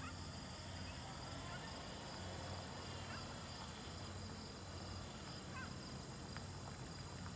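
Steady drone of crickets or other insects, with a few short bird chirps, over a faint low steady hum.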